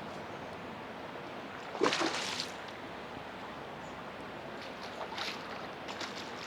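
River water running steadily, with a short burst of louder noise about two seconds in and a fainter one near five seconds.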